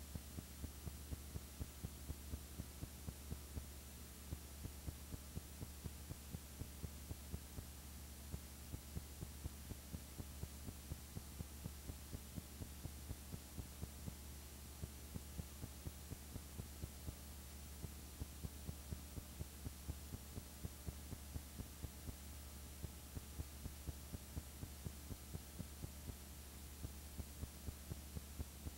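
Steady low electrical hum with faint regular ticks about three times a second, and no other sound.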